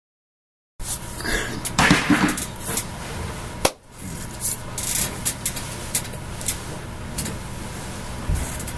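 Room noise picked up by a webcam microphone, cutting in suddenly about a second in, with a faint steady hum and scattered rustles, taps and claps from hands and clothing as a person signs.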